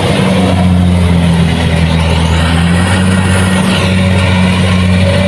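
Kubota DC-70 Plus rice combine harvester's diesel engine running steadily, a loud, even low drone.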